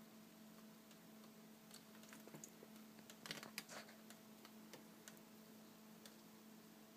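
Near silence: room tone with a steady faint hum and a few faint clicks a little past the middle.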